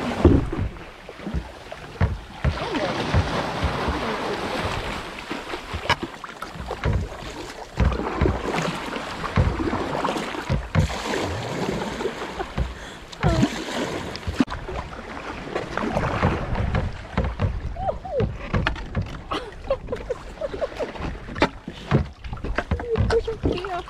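Sea kayak being paddled through narrow rocky channels: water splashes and sloshes around the hull with each paddle stroke, and there are frequent short knocks and splashes throughout.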